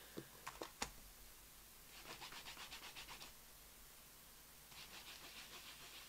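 Craft supplies being handled on a desk: a few light clicks near the start, then two spells of quick, rhythmic faint scratching or rubbing, each lasting about a second.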